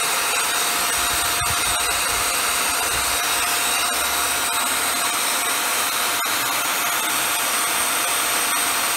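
Hoover WindTunnel Air Pro upright vacuum cleaner running steadily: an even rush of air with a steady whine. The brush-bar motor is engaged but the brush is not being driven, which the owner puts down to a burnt-off belt.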